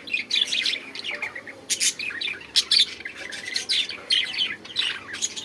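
Pet bird chirping: a quick, uneven series of short chirps, each sliding downward in pitch.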